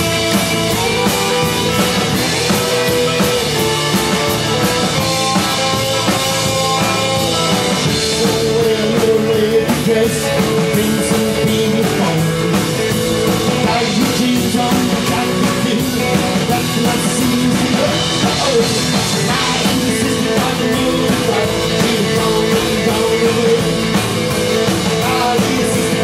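Live rockabilly band playing: electric guitar over upright double bass and drum kit, with a steady beat.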